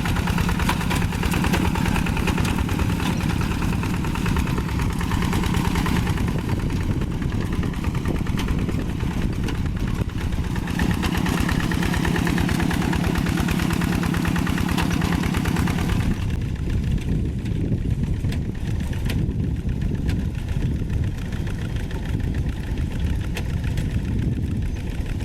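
Single-cylinder diesel engine of a two-wheel hand tractor chugging steadily while ploughing. Its tone shifts a few times and turns duller about two-thirds of the way through.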